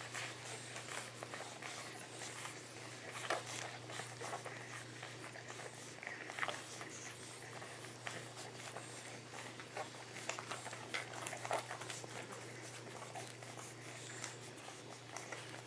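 Boxer puppies nursing from their mother: irregular soft suckling and snuffling noises, with a few brief high squeaks from the pups.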